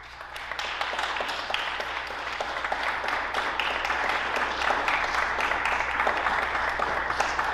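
Audience applauding: steady clapping that starts suddenly and fills out within the first second.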